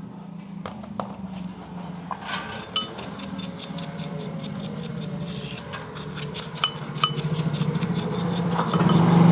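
Metal tools and parts clinking and tapping many times, some strikes ringing briefly, over a steady low hum that grows louder near the end.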